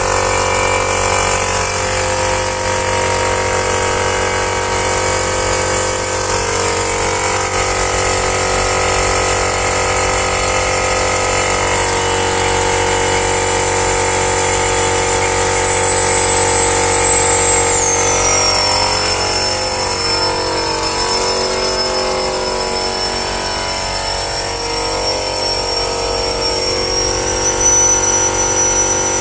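Shrink-wrap packaging machine (L-type film cutter-sealer) running: a steady mechanical hum with several held tones and a high whine. About two-thirds of the way through, the whine drops lower in pitch.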